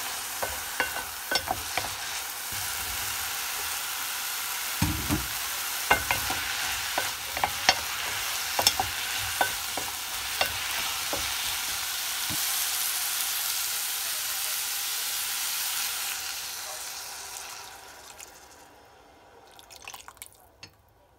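Vegetables and shimeji mushrooms sizzling as they are sautéed in a ceramic-coated pot, with a wooden spatula clicking and scraping against the pot as they are stirred. A dull thump comes about five seconds in, and the sizzle fades away near the end, leaving a few light knocks.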